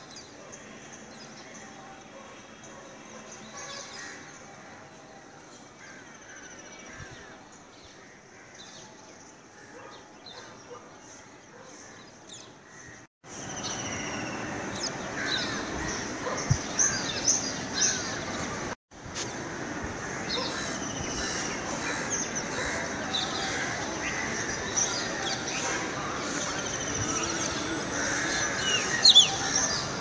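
Many birds calling outdoors at dawn, a busy mix of short high chirps and calls over a steady background hum. The sound gets noticeably louder a little before halfway, after a brief dropout, and cuts out for a moment once more soon after.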